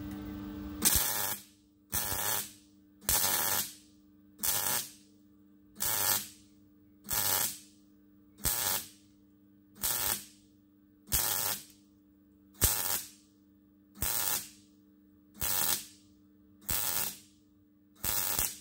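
MIG welder laying short stitch welds to build up the rust-eaten surface of an old steel roller: about fourteen half-second bursts of arc, one roughly every 1.2 seconds.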